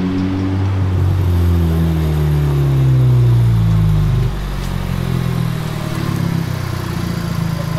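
Honda Civic Type R's turbocharged four-cylinder engine as the car drives up. The engine note sinks in pitch, drops a little in level about four seconds in, then runs steadily as the car slows.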